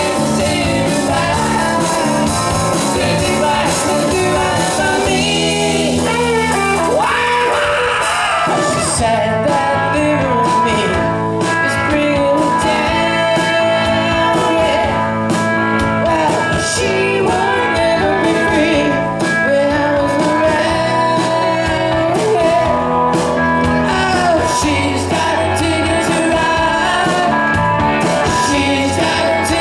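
Live band playing amplified music: electric bass, electric guitar and drums, with a man singing at the microphone.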